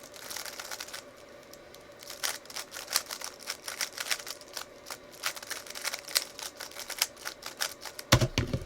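3x3 Rubik's cube being turned fast by hand: irregular plastic clicks and clacks of the layers, several a second. A heavier thump comes near the end.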